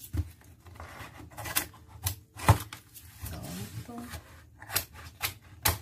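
Scissors snipping through a cardboard mailer, a series of sharp cuts with the cardboard rustling between them; the loudest snip comes about two and a half seconds in.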